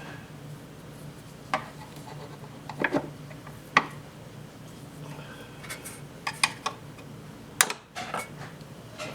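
Irregular metallic clinks and knocks, about a dozen, of tools and metal parts being handled while a washing machine is taken apart. A faint steady hum runs underneath.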